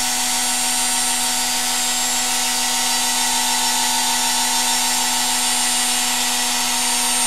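A 200 W electric motor spinning a homemade generator converted from a washing-machine motor, running at a steady speed with an even hum and whine.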